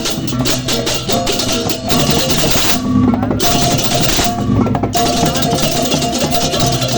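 Balinese baleganjur gamelan music: fast, dense clashing of cymbals over drums and steady pitched gong tones. The cymbals drop out twice briefly near the middle.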